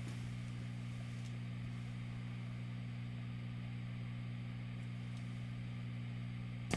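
Steady low hum made of several tones, with a faint hiss over it. A sharp click comes near the end.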